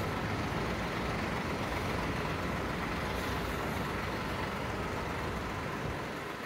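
Steady road-traffic noise, an even rushing hum with no distinct events, easing slightly near the end.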